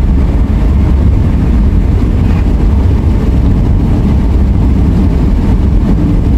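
Steady low rumble of a car driving along the highway, engine and tyre noise with no change in pace.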